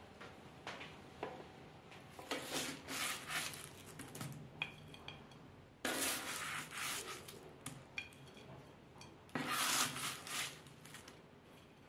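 A slotted spatula scraping across parchment paper on a baking tray as it scoops up roasted cauliflower florets, in three scraping strokes with small clicks between them.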